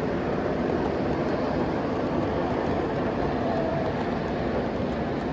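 Three-rail O gauge model trains running on a layout, giving a steady, even rumble of wheels on track.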